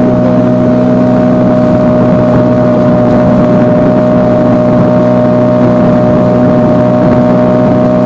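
Yamaha 9.9 outboard motor running steadily at constant throttle: a loud, even drone that holds one pitch throughout.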